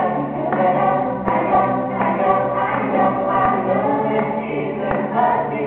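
A choir of young children singing a song together, their voices held in long sung notes without a pause.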